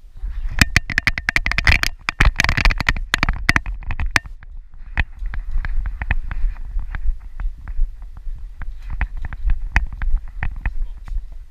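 Harness-mounted GoPro jostled on a running dog's back: rapid irregular clicks and knocks from the camera mount and harness over a constant low rumble of handling noise, densest in the first few seconds.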